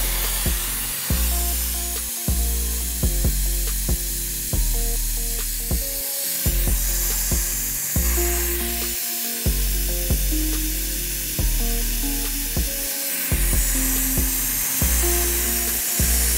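Background music with a heavy bass line and a steady beat, over a steady hiss of compressed air from a pneumatic vacuum brake bleeder drawing fluid out through the caliper's bleed screw.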